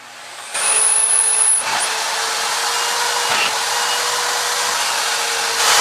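Wet/dry shop vacuum switched on about half a second in, its motor running with a loud, steady rush of air and a high whine during the first second. It grows louder again near the end.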